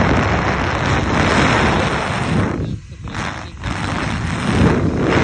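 Remington hair dryer running on its cold setting: a steady blowing noise of fan and airflow that dips briefly twice about three seconds in.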